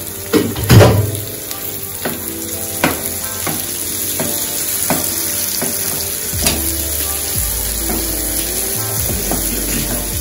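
Onions, sweet peppers and tomatoes sizzling in hot oil in a frying pan, stirred with a wooden spoon in short strokes a little more than once a second. There is a louder knock about a second in.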